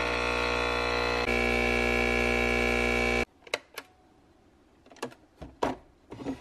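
Capsule espresso machine's pump buzzing steadily as it brews into a ceramic mug, stepping up slightly about a second in and cutting off about three seconds in when the shot ends. A few light knocks and clicks follow.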